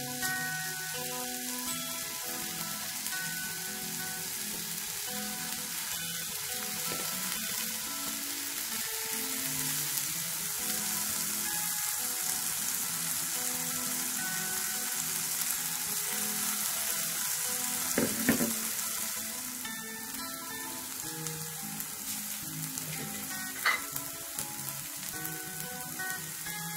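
Potato and egg pancake frying in hot oil in a pan, a steady sizzle that eases a little about twenty seconds in, over soft background music. Two sharp knocks, one about eighteen seconds in and one near twenty-four seconds.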